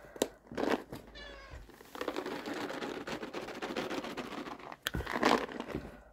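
A big black domestic cat gives a short, soft chirping meow about a second in, begging for treats. It is followed by a few seconds of rustling and rattling as a pouch of cat treats is handled.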